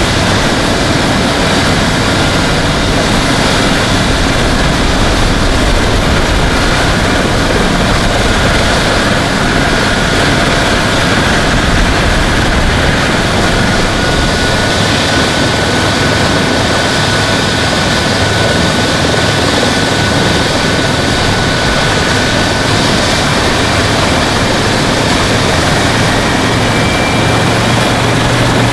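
Eurocopter EC135 rescue helicopter running on the ground with its main rotor turning: a steady, loud turbine and rotor noise with a thin whine above it. Near the end a low hum grows stronger.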